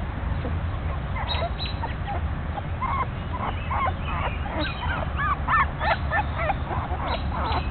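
A newborn puppy crying, a run of short, high, rising whimpers and squeals that come thicker and faster from about three seconds in, over a steady low rumble.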